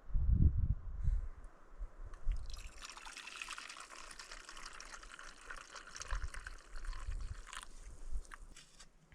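Water trickling and pouring into a container, building up over the first few seconds and stopping shortly before the end, with a few low bumps at the start.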